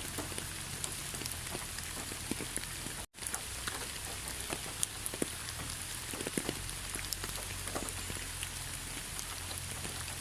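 Steady rain falling, with many individual drops striking close by over an even hiss. It cuts out to near silence for a split second about three seconds in.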